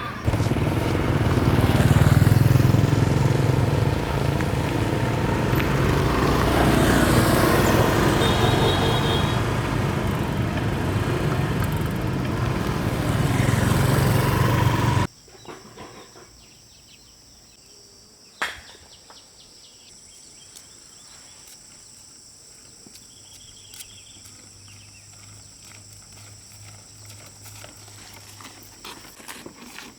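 A vehicle engine running steadily with heavy rushing noise over it. About halfway through it cuts off abruptly to quiet outdoor background, with a single sharp knock a few seconds later.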